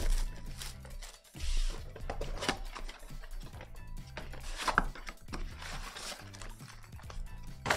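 Background music playing, over the rustle and crinkle of a foil trading-card pack wrapper being torn open and the cards being handled, with a few sharp snaps.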